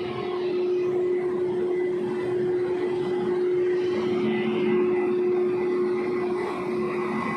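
Passenger train pulling out of the station, a steady running hum with one held tone over a continuous rumble.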